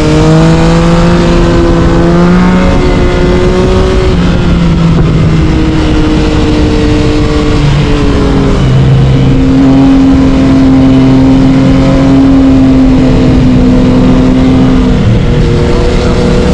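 Yamaha MT-09 inline-three engine breathing through an Akrapovic carbon exhaust under way. Its pitch climbs gradually and drops back a few times, then holds steady for several seconds before dropping again near the end.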